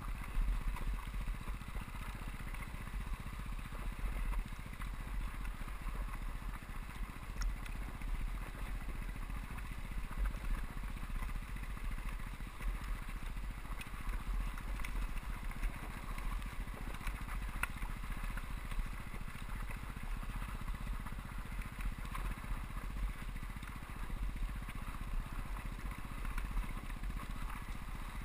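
2001 KTM 200EXC two-stroke dirt bike engine running at a fairly steady pace while riding a dirt trail, heard from an on-board camera with a constant low rumble underneath.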